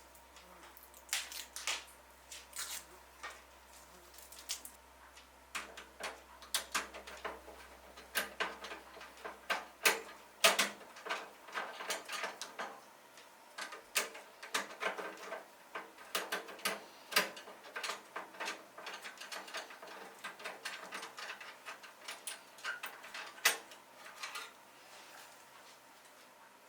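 Irregular clicks, taps and small knocks of hardware being handled and fitted together, coming in quick clusters with a few sharper knocks. A low steady hum cuts out about ten seconds in.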